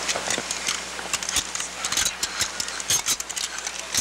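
Rifles being handled in a weapons drill: a rapid, irregular clatter of clicks and knocks as the guns are swung and shouldered, over the steady hiss of an old recording.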